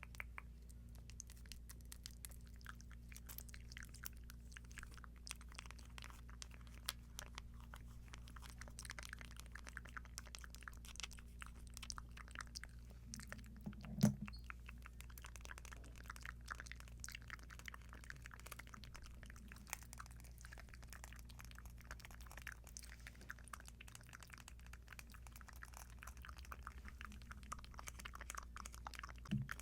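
Earrings handled close to a sensitive microphone: a steady patter of small, quick clicks and taps, with one louder knock about halfway through, over a faint steady low hum.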